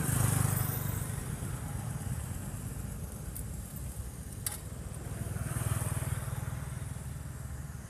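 Engine noise of passing road vehicles, swelling and fading twice, at the start and again about three quarters of the way through, with one sharp click about halfway.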